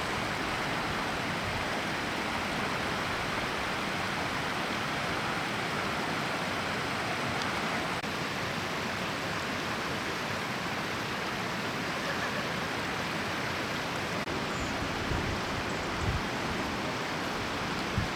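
Steady rushing of a river in flood running high and fast, with rain falling. A few low bumps hit the microphone near the end.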